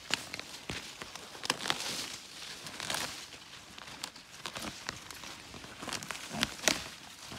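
Rustling and crackling of dry leaves, weeds and stems as gloved hands pull and clear weeds around the base of blackberry canes, in irregular snaps and crackles with one sharper crackle near the end.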